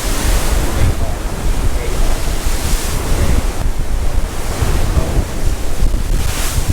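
Storm wind from Hurricane Nicole buffeting the microphone with a heavy rumble, over pounding surf. The hiss swells about two and a half seconds in and again near the end.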